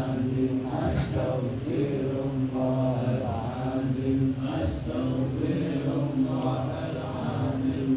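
A man chanting Arabic recitation into a microphone: a slow melodic line of long held notes that glide up and down without a break.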